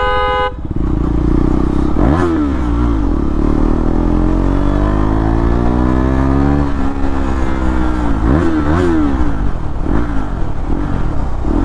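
KTM Duke 390's single-cylinder engine through an SC Project CR-T exhaust, pulling with the revs climbing steadily for several seconds, dropping sharply about halfway through, then blipped up and down. A vehicle horn sounds briefly at the very start.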